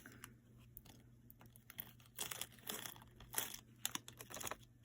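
Small plastic packaging crinkling and rustling in the hands, with scattered light clicks, busier in the second half.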